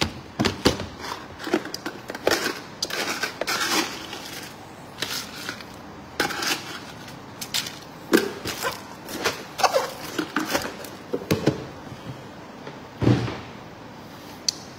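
Crushed ice clinking and crunching in a stemmed glass of iced drink handled close to the microphone: an irregular string of short clicks and crunches, with a duller knock about 13 seconds in.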